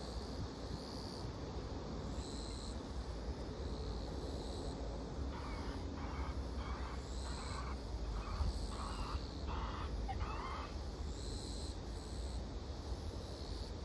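Steady low outdoor rumble, with a run of about eight short, evenly spaced animal calls in the middle, roughly two a second.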